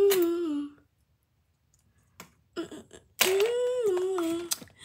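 A person humming a tune in two held phrases: the first breaks off under a second in, and the second starts about three seconds in. A few faint clicks of plastic bricks being handled come in the pause between.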